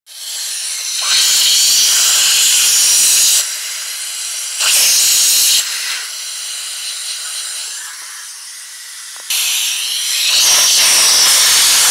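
Loud rushing hiss in three bursts, roughly two seconds, one second and three seconds long, over a quieter steady hiss between them.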